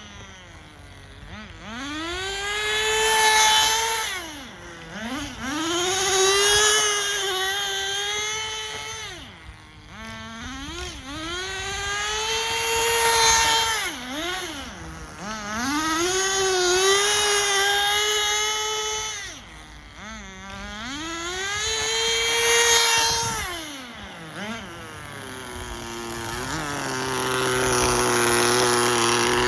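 Small nitro RC car engine revving up and down again and again as the car is driven hard, the whine swelling and fading about five times, then settling to a steady idle near the end.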